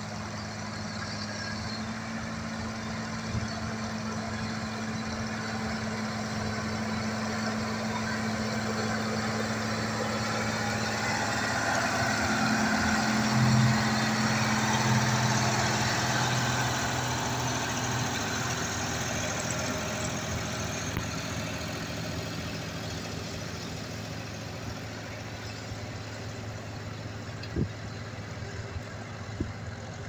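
Six-cylinder Perkins diesel engine of an Ursus C-385 tractor running steadily under load while pulling a plough. It grows louder as the tractor passes close, loudest about halfway through, then fades as it moves away. Two short knocks come near the end.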